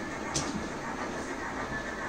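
OO gauge model train running along the track: a steady running hum with one sharp click about a third of a second in.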